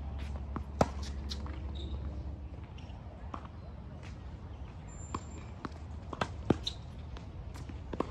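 Tennis ball struck by rackets and bouncing on a hard court: a series of sharp pops, the loudest about a second in and again about six and a half seconds in, with footsteps between.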